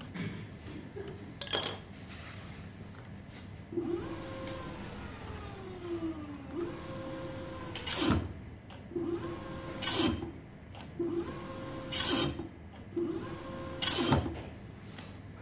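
Electric scooter hub motor whining as the wheel is spun up, with a sharp clack from the disc brake or lever about every two seconds, repeated four times. The first whine falls in pitch as the wheel runs down. This is a test of the freshly tightened brake.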